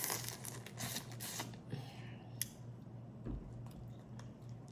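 Crawfish shells being cracked and peeled by hand while eating: a scattered run of sharp clicks and crackles over a low steady hum.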